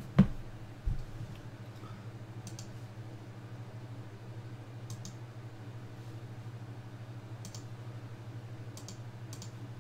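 A die tossed onto a tabletop, landing with a sharp knock just after the start and a second knock just before a second in. Then computer mouse clicks every couple of seconds, some doubled, over a steady low hum.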